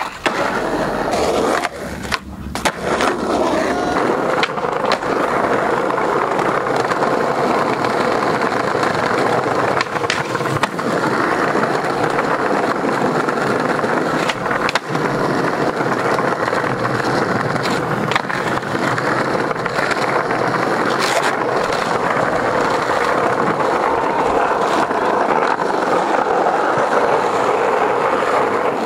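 Skateboard wheels rolling steadily over rough concrete, with a few sharp clacks of the board popping and landing tricks, several near the start and a few later on.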